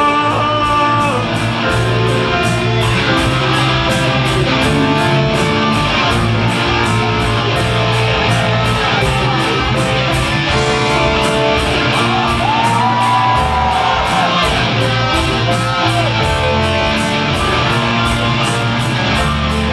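Background pop song in an instrumental break, led by guitar over a steady beat.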